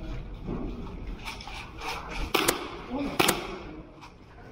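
Two sharp cracks about a second apart from an airsoft pistol being fired, over shuffling footsteps and scuffing on a concrete floor.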